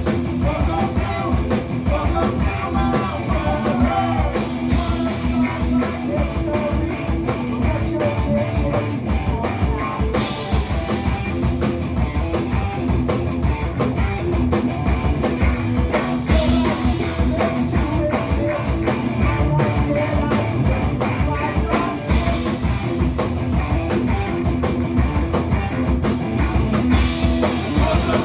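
Rock band playing live: electric guitar, electric bass and drum kit with sung lead vocals, loud and continuous.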